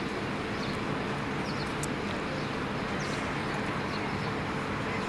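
Steady low rumble of idling engines and distant traffic, with a few faint high bird chirps.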